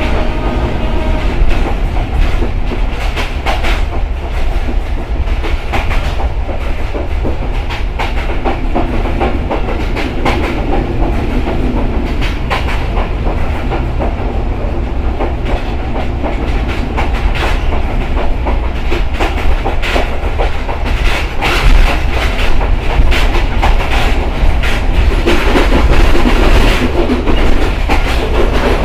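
Simanta Express passenger train running at speed, its wheels clacking over the rail joints above a steady deep rumble, getting somewhat louder near the end.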